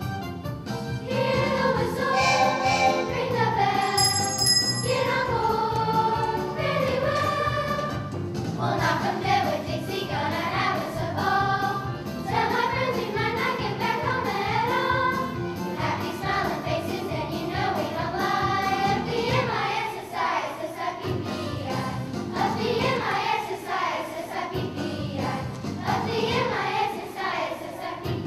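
Children's choir singing a jazz song over instrumental accompaniment played through a loudspeaker. A brief high ringing sounds about four seconds in.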